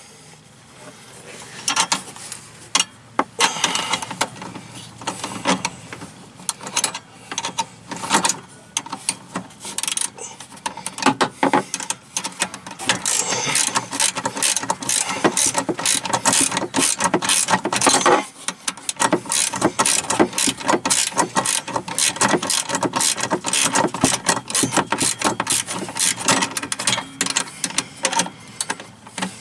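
Rapid clicking of 10 mm wrenches working a bolt and Nylock nut tight on a throttle pedal. The clicks are scattered at first, then come in quick dense runs with short pauses through the second half.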